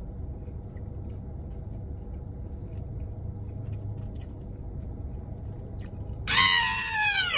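Low, steady rumble of a car cabin with faint chewing. Near the end a man gives a long, falling moan of enjoyment as he tastes a fish sandwich.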